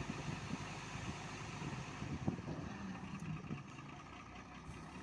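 Hyundai 210-7 crawler excavator's diesel engine running steadily, with a few short knocks, the sharpest about two seconds in.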